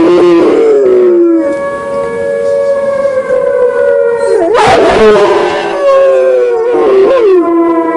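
Rottweiler howling: three long, drawn-out howls, each sliding slowly down in pitch, at times with a second howling voice overlapping.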